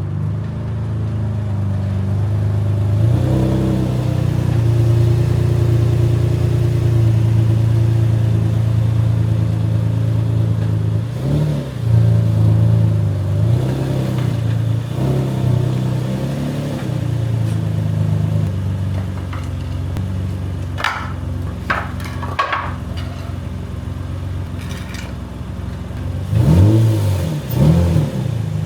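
Nissan 350Z's VQ35DE V6 with an aftermarket Y-pipe and test pipes running under way, holding a steady note with a few changes in pitch. There are a few short knocks in the middle, and the engine revs up and down near the end.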